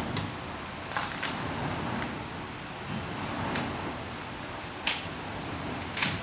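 Hand roller pressed over adhesive-backed foam deck pad, with several sharp clicks and taps as the roller and sheet are handled, over a steady hiss.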